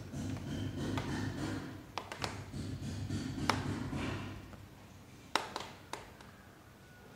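Low handling noise with several sharp taps; it dies down about four and a half seconds in, and two more taps follow.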